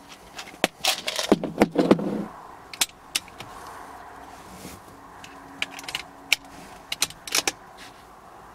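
Sharp clicks, knocks and a rattling clatter of gear being handled, a busy burst in the first two seconds, then a few scattered clicks later.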